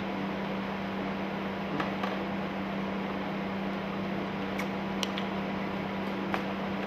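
A kitchen appliance humming steadily at one low pitch with a whirring, airy noise, like a microwave oven or fan running, with a few light clicks.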